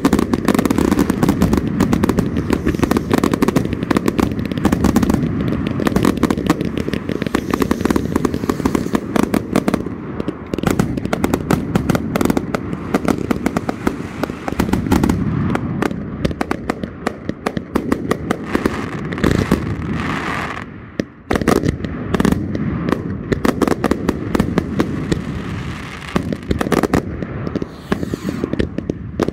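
Consumer firework cakes firing together in a finale: a dense, continuous barrage of rapid shots and bursts. The barrage briefly thins out about 21 seconds in, then picks up again.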